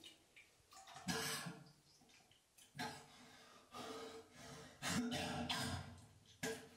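A man retching and coughing into a toilet bowl in about five separate bursts: being sick from indigestion after overeating.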